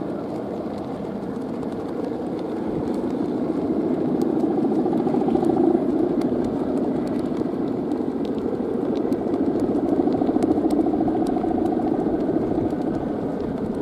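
Buzzing drone of the bamboo bow hummers (guangan) on giant Balinese kites vibrating in the wind, swelling about four seconds in and again about ten seconds in.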